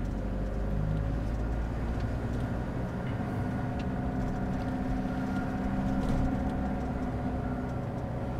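Toyota 3L diesel engine of a Toyoace truck running steadily under way, heard from inside the cab as an even drone with road noise.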